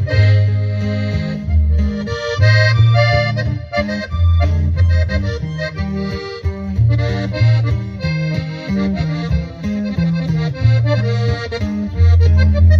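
Accordion-led band playing an instrumental break of a song, with the accordion carrying the melody over strong, regularly changing bass notes.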